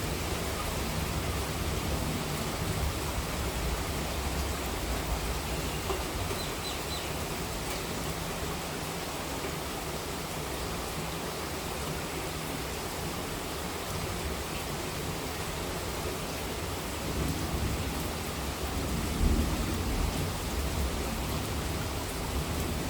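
Steady monsoon rain falling, an even hiss of rain. A low rumble of thunder swells and fades about three-quarters of the way through.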